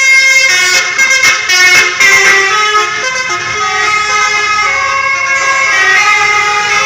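Loud multi-tone 'telolet' bus horn playing a stepped tune, several horn notes sounding together and changing pitch every half second or so.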